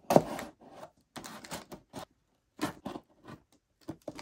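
Folding pocket knife slicing through packing tape on a cardboard box: three or four short scraping strokes with brief pauses between, the first the loudest.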